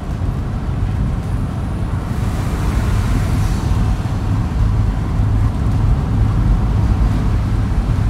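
Steady engine and road rumble heard inside a moving car's cabin, with a brief rushing swell of hiss about two to four seconds in.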